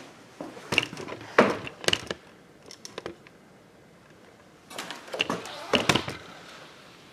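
Handling noise: knocks, clicks and scraping of parts being moved and set in place, in two bursts of about a second and a half each, a few seconds apart.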